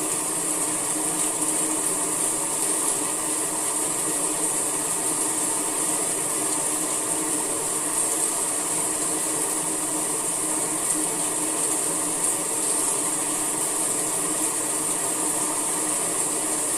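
Steady rain falling: an even, unbroken hiss, brightest in the high range.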